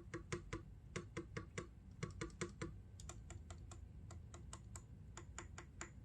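Steady typing on an MK870 mechanical keyboard with lubed and filmed Durock L7 linear switches, a tape mod and ABS keycaps. Separate keystrokes come about four to five a second, with a deeper knock to each press in the first half and lighter presses after.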